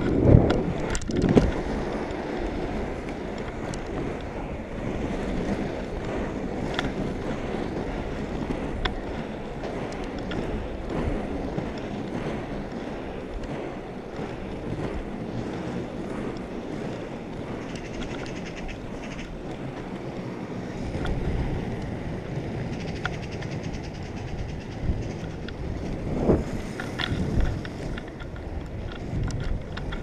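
Inline skate wheels rolling steadily over asphalt, a continuous rumbling with wind buffeting the microphone, and a few louder knocks near the start and again near the end.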